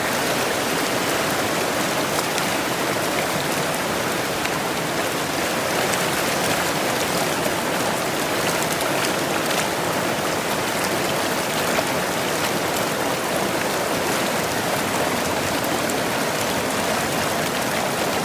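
Fast, shallow stream water rushing and churning around an Archimedes screw pump turning in the current: a steady, even rush.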